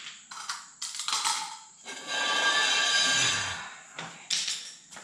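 A cordless power tool runs in one burst of about a second and a half, with a whine, amid sharp clanks of metal tools handled on a concrete floor.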